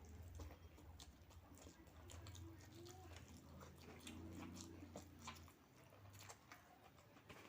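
A person chewing food quietly, with scattered small mouth and utensil clicks, over a faint low hum.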